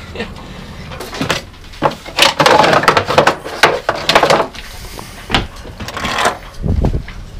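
Knocks and clatter of a small wooden cabinet door and a plastic dustpan and brush being taken out and handled, busiest from about two to four and a half seconds in.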